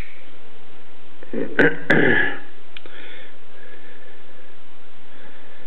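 Buck TNT folding knife being opened one-handed: two sharp metallic clicks about a third of a second apart as the blade swings out and the titanium frame lock snaps into place, over a steady hiss.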